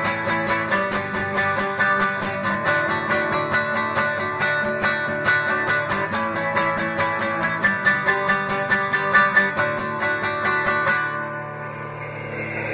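Instrumental passage of a song led by strummed guitar in a steady, quick rhythm of about four strokes a second. The strumming stops about eleven seconds in, and a quieter held sound carries on.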